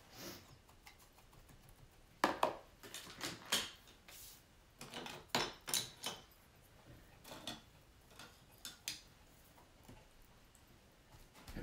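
Painting supplies being handled on a work table: hard objects clinking and knocking as they are picked up and set down, in several short clusters.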